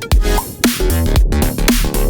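Electronic background music with a heavy bass and a steady beat, dropping out briefly for a moment at the start.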